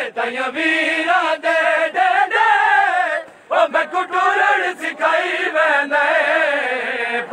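Men's voices chanting a Punjabi noha (mourning lament) in unison, with a steady rhythm of hand slaps on the chest (matam) beating time. The chanting breaks off briefly just past three seconds in, then resumes.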